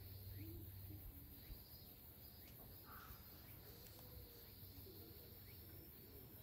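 Faint outdoor ambience: a steady, high insect buzz with a few short, falling bird chirps scattered through it.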